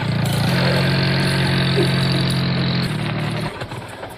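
Toy jeep giving out a steady, engine-like hum with a faint high whine over it, which stops about three and a half seconds in.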